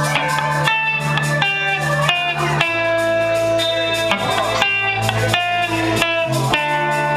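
A band playing a blues-rock song, with an electric guitar holding sustained lead notes that change about once a second over a steady bass line.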